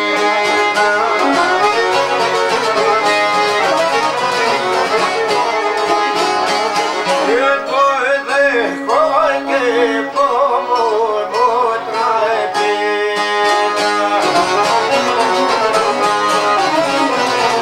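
Albanian folk music: fast plucked string instruments under a melody that bends and wavers in ornaments about halfway through.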